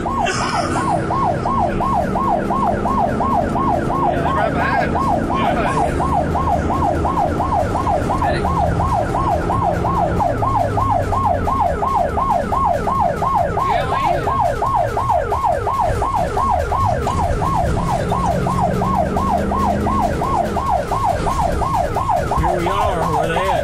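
Emergency vehicle siren in fast yelp mode, rising and falling about three times a second, heard from inside the responding vehicle over the low rumble of its engine and road noise. It winds down and stops at the very end.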